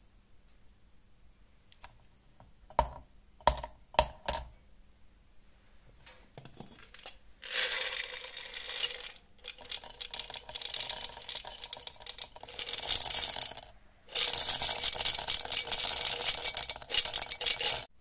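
A few separate metal clicks, then loose steel bearing balls poured from a metal tin into a cast refractory crucible in a dense, continuous rattle. The pour pauses briefly near the end, then runs on loudly and stops suddenly: the crucible is being loaded with its steel charge for a wootz melt.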